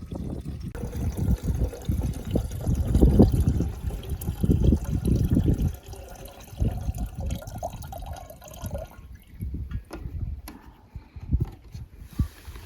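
Strong wind gusting and rumbling in uneven surges, louder through the first half and easing off after.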